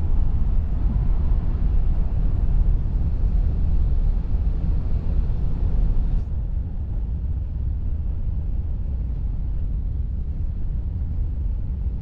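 Steady low rumble of a coach bus on the freeway, engine and road noise heard from inside the cabin. About six seconds in it turns slightly quieter and duller, losing its hiss.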